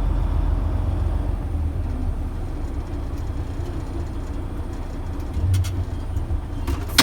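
Grain truck engine running at low revs as the truck backs off the scale toward the dump pit: a steady low rumble. A single sharp click comes at the very end.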